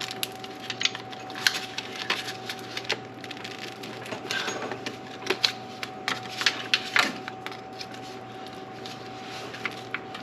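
Irregular metallic clicks and taps of a socket wrench and hand tools working an 8 mm bolt on a car engine's intake.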